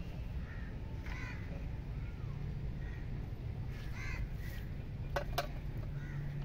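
A few short bird calls, one about a second in and more near four seconds, over a low steady background noise. Two quick clicks come a little after five seconds.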